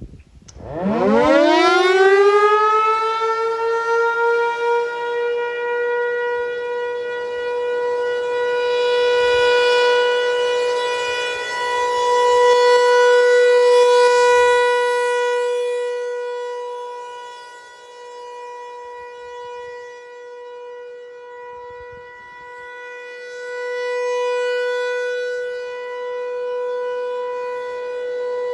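American Signal Corporation Tempest T-135AC/DC outdoor warning siren sounding the Alert signal: about half a second in it winds up in a fast rising glide, then holds one steady tone. The tone swells louder and fainter slowly, peaking roughly every eleven seconds as the rotating head sweeps past.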